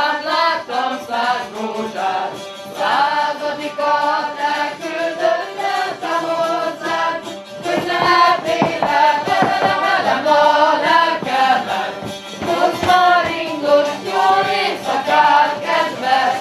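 A group of young men and women singing a Hungarian folk song together while dancing a csárdás. In the second half, boots stamp on a wooden floor under the singing.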